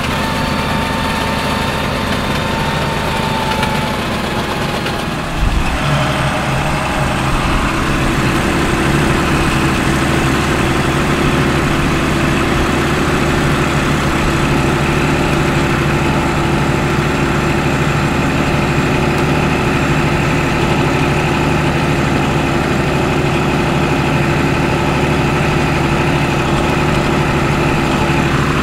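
Case CS 150 tractor's diesel engine running steadily, heard from inside the cab while working with a slurry tanker. There is a brief knock about five seconds in, then the steady engine note carries on.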